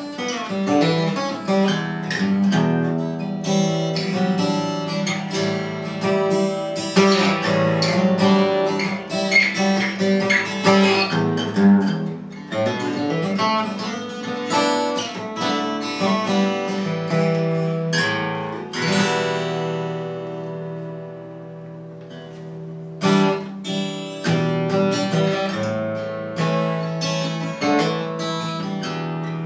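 Martin 000-42 steel-string acoustic guitar played fingerstyle, a continuous run of picked notes and chords. About two-thirds of the way through, one chord is left ringing and fading for a few seconds before the picking resumes.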